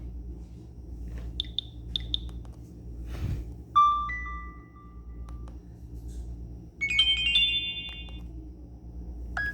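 Nokia ringtones from a Nokia 130 phone's speaker, heard as short electronic melody snippets that start and break off. The loudest are a tone about four seconds in and a multi-note phrase about seven seconds in.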